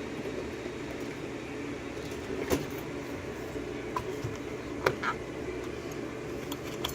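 A few isolated sharp clicks of small metal tools against a Euro lock cylinder as it is being taken apart, over a steady low background hum.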